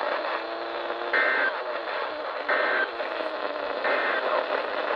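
Three short EAS SAME data bursts, the buzzy two-tone digital code, each under half a second and spaced about 1.3 s apart, over steady radio hiss. Coming right after a message ends, they are the end-of-message signal.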